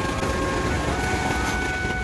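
A train passing at a level crossing: a steady rumble of wheels on rail, with a chord of steady tones above it that shifts to new pitches partway through.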